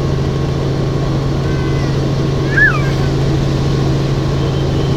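Helicopter in flight heard from inside the cabin: a steady loud drone of rotor and engine with a deep hum. A short sliding high note rises above it about halfway through.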